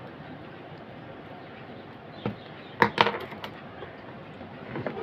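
Handling noise of an inverter circuit board being moved on a table: a handful of sharp knocks and clicks from about two to three and a half seconds in, over steady background hiss.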